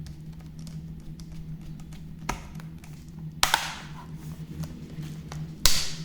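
A plastic laptop bottom cover being screwed down and pressed into place: faint ticking from a precision screwdriver, and three sharp plastic clicks about two, three and a half, and just under six seconds in, the last two the loudest, over a steady low hum.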